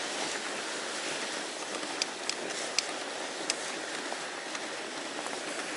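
Fat-bike tyres rolling over a forest trail: a steady hiss with a few sharp ticks about two to three and a half seconds in.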